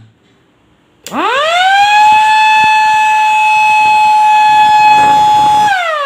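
Electric motor-driven siren switched on. It winds up over about a second to a loud, steady wail, holds the tone, and near the end starts winding down in pitch as the power is cut at the push button.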